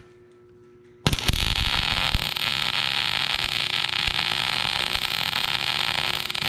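Millermatic 251 MIG welder arc striking about a second in and running with a steady crackle, welding a new steel cutting edge onto a dozer blade.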